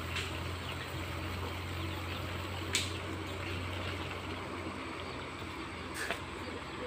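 Grain poured from a metal plate in front of an electric fan, streaming down in a steady hiss onto a plastic tarp as it is winnowed. A low hum runs under it and fades out after about four seconds, and two sharp clicks stand out about three seconds apart.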